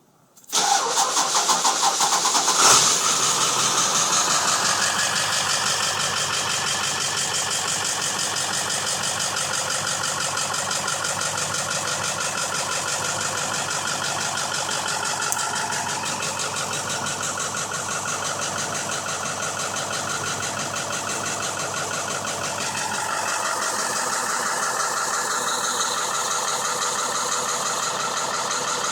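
2001 Ford F-350's 7.3 L Powerstroke V8 turbo diesel, a truck with a hard-starting problem, starting about half a second in. It is louder for the first few seconds, then settles into a steady idle.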